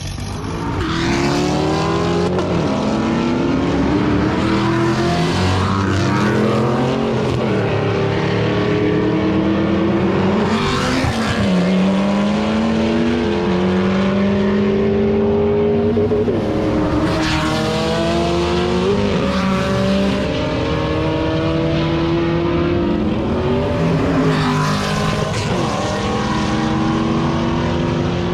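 Performance car engine revving hard again and again, its pitch climbing and then dropping every few seconds, with a few louder bursts of hiss.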